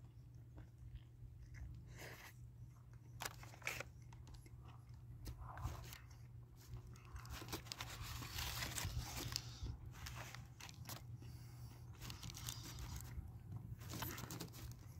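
Close-up chewing and biting of a steak sub with a crunchy topping: irregular wet crunches and crackles, thickest in the middle, over a steady low hum.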